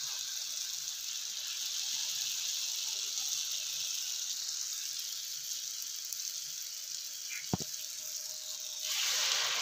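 Hot cooking oil sizzling steadily as kuih ros batter fries on and off a metal rose mould. There is one sharp click about seven and a half seconds in, and the sizzling grows louder near the end.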